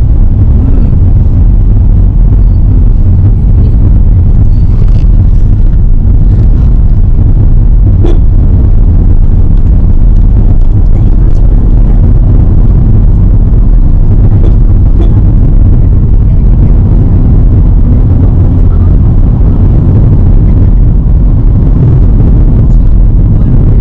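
Loud, steady low rumble of a moving vehicle in travel, with its energy concentrated in the lowest notes and no pauses.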